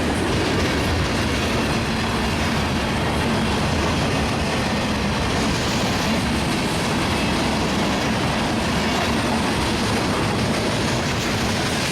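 A train rolling past on the tracks: steady wheel-on-rail noise from the railcars, loud and unbroken.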